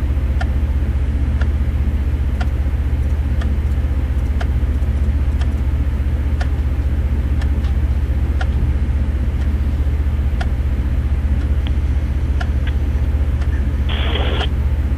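Vehicle engine idling with a steady low hum, with a faint tick about once a second. Near the end comes a short burst of radio static.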